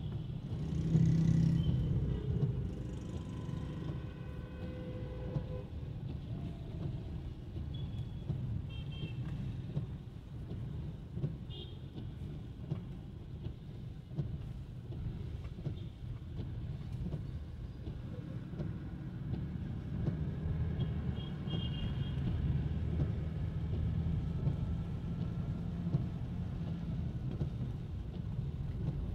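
Road traffic rumbling steadily, with a held pitched tone for about four seconds near the start and a few short high beeps later.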